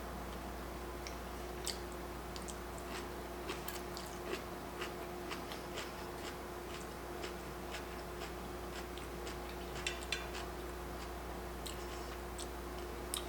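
Someone chewing sushi: scattered short, soft mouth clicks and smacks at an uneven pace, over a steady low hum.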